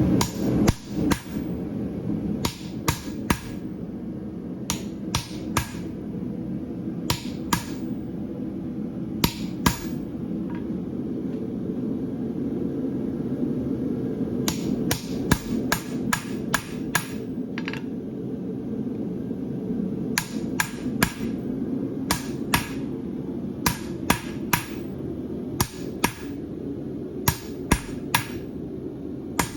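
Hammer striking hot steel on an anvil as a farrier shapes a handmade horseshoe branch from the heel forward, in short runs of ringing blows with brief pauses between them. A steady low rumble runs underneath.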